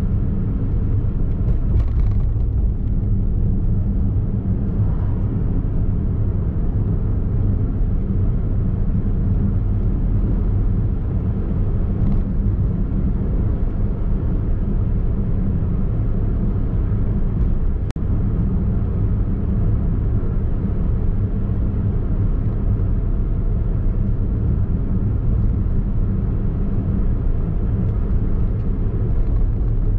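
Daihatsu Mira e:S kei car with its small three-cylinder engine, driving at a steady pace: an even low rumble of tyres and engine, with one brief click about 18 seconds in.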